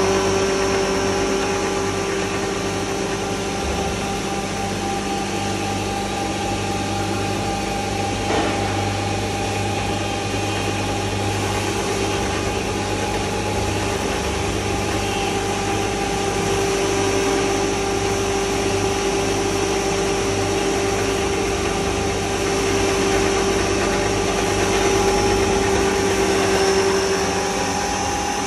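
Stainless-steel coriander grinding machine (spice pulverizer) running steadily on its electric motor: a constant mechanical hum with a steady whine on top.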